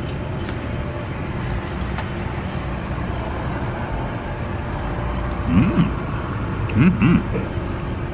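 Steady street traffic noise. Near the end, a few short hums that rise and fall in pitch, like a man's appreciative "mmm" while chewing.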